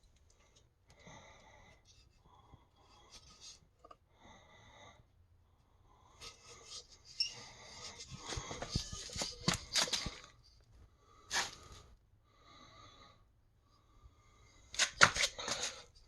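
Handling noise: irregular clicks, light knocks and rustles, with a few faint short squeaks, and a cluster of sharper clicks near the end. No motor is running.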